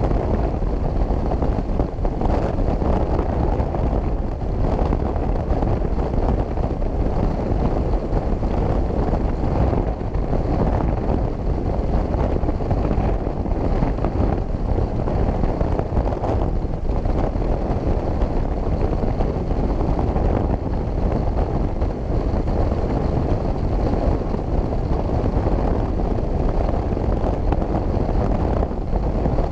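Motorcycle cruising at a steady highway speed: constant wind rush over the microphone mixed with the engine's drone.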